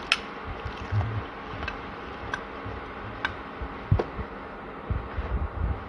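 A metal spoon stirring jelly powder into hot water in a stainless steel pot: liquid swishing with a few sharp clinks of the spoon against the pot, over a faint steady hum.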